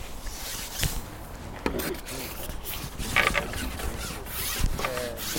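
Rustling and scraping handling noise with a few light knocks.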